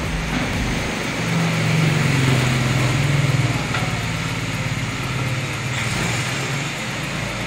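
Sedan's engine running with road noise. The engine note swells and rises slightly from about a second and a half in, then eases back after three and a half seconds.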